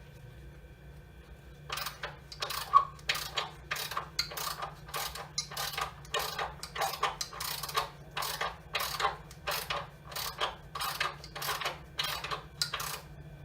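Metal hand tools working on the engine: a long run of sharp mechanical clicks and clatters, about two or three a second, starting about two seconds in.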